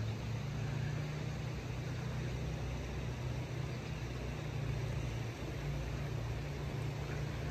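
Axial RYFT RC rock crawler's electric motor and gear drivetrain humming steadily at low speed as it crawls over rocks, its pitch shifting slightly with the throttle, over a steady rushing hiss.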